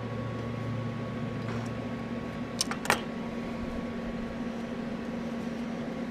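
TIG welder running with a steady electrical hum, with two sharp clicks close together a little under three seconds in.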